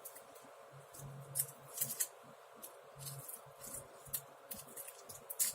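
Scattered light clicks and taps from a RAM module and small computer parts being handled, over a faint steady hum.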